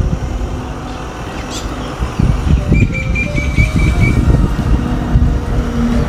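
Loud, uneven low rumble throughout, with a bird's quick trill of repeated high notes lasting about a second, starting about three seconds in.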